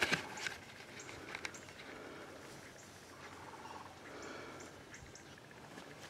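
Wild turkey gobbling faintly, a quick rattling call a little past the middle.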